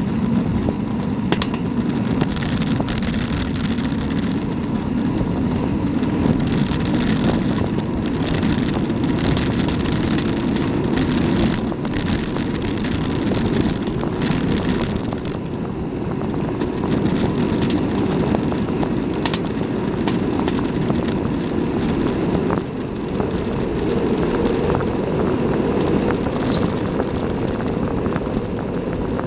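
Wind rushing over the microphone as a bicycle rolls downhill at speed on an asphalt road, a steady low rush with tyre noise beneath it.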